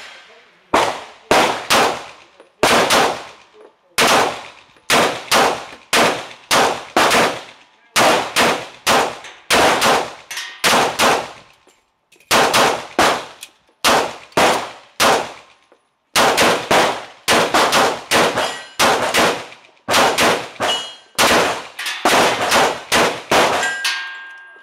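Two semi-automatic pistols, a Beretta PX4 Storm and a Smith & Wesson 1911, firing side by side: a long string of sharp shots at an uneven pace, sometimes overlapping, each with a brief ringing tail. The shooting stops near the end.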